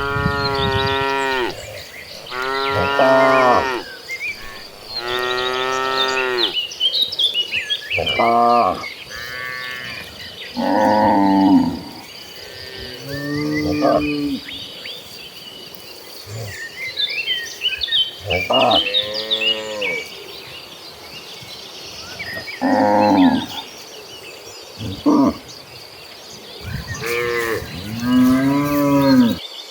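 A herd of cattle mooing again and again: about a dozen calls at different pitches from several animals, some long drawn-out lows and some short, with brief gaps between them.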